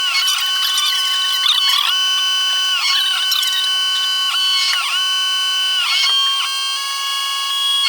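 CNC machine's stepper motors whining as they drive the axes. The pitches hold steady, then dip and come back at each change of move, about every one to one and a half seconds.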